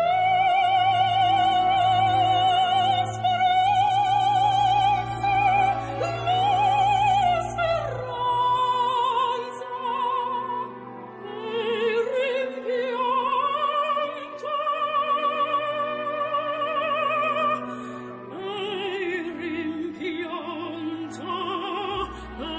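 Operatic singing with a wide vibrato, long held notes moving from one pitch to the next, over a steady sustained accompaniment.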